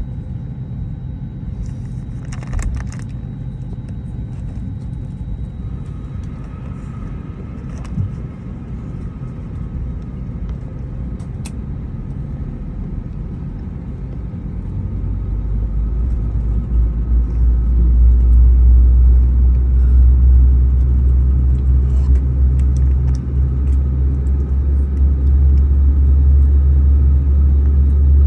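Airbus A320neo jet engines: a steady low rumble, then about halfway through the engine noise swells and grows much louder and deeper as takeoff thrust is set, holding loud to the end.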